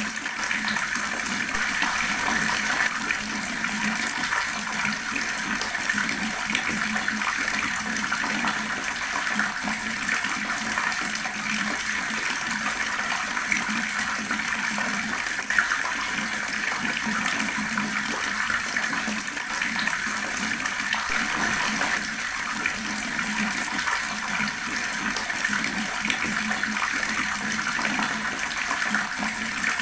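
Water running from a tap, gurgling and splashing steadily.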